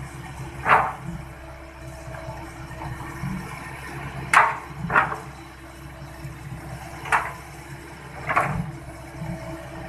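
Excavator diesel engine running steadily, with five short sharp knocks spread unevenly across it, two of them about half a second apart.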